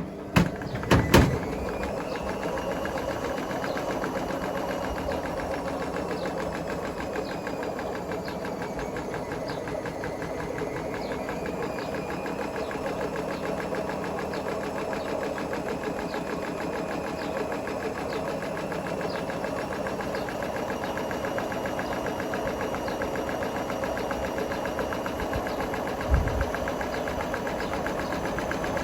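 Hotpoint Smart Tech WMFUG742 washing machine running at speed with a brick in the drum: a motor whine that dips and then rises in pitch over a dense, fast rattle. A few loud knocks come about a second in, and a low thump comes near the end.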